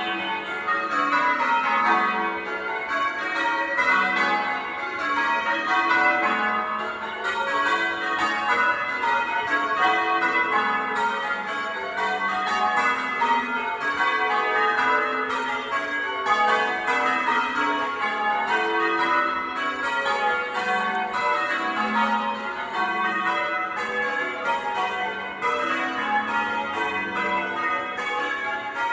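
Church tower bells being change-rung: the bells are struck one after another in a steady, unbroken stream, the order of the strikes shifting from row to row.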